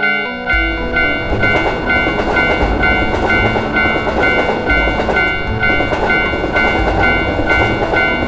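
Japanese railroad crossing alarm ringing its repeating electronic "kan-kan" bell, about three strikes a second. About half a second in, a passing train's rumble and wheel clatter join it.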